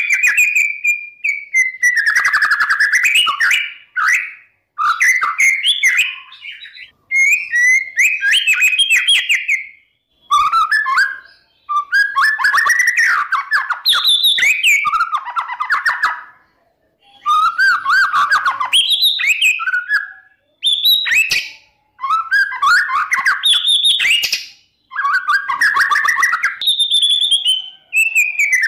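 Male white-rumped shama (murai batu) singing loudly: about a dozen rich whistled phrases of one to two seconds each, broken by short pauses and mixed with sharp clicking notes. It is a full 'gacor' song meant as a lure to rouse rival shamas.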